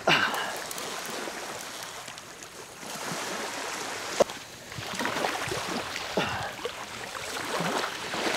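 Surf washing onto the beach, with a loud sudden sound at the very start and a sharp click about four seconds in.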